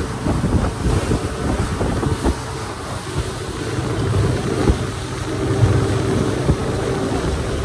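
Motorboat running at cruising speed: a steady engine drone under the rush of wind buffeting the microphone and water along the hull.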